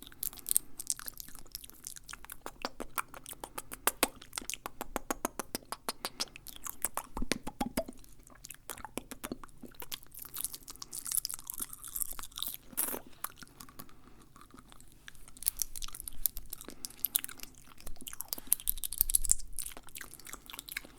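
Fast, wet ASMR mouth sounds close to the microphone: quick runs of sharp clicks and smacks, densest in the first third.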